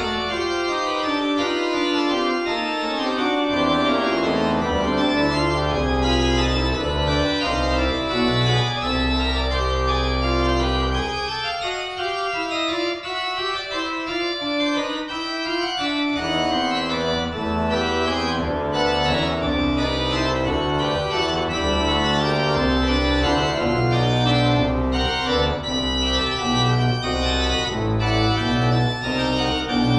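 Hey pipe organ playing a dense many-voiced passage on manuals and pedals. The deep pedal bass drops out for a few seconds near the middle, then comes back.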